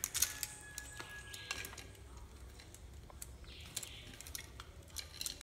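Scattered small clicks and taps of a socket outlet and its fixings being handled and pressed into a wall box, a few close together just after the start and a small cluster near the end.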